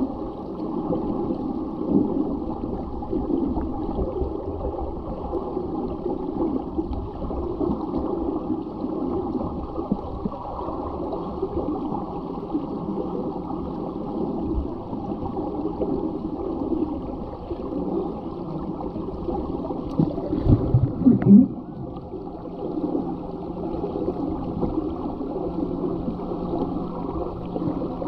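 Muffled underwater swirl of pool water churned by a group of swimmers treading with the eggbeater kick, heard from beneath the surface. About twenty seconds in there is a brief run of louder low knocks, and after it a low steady hum sets in.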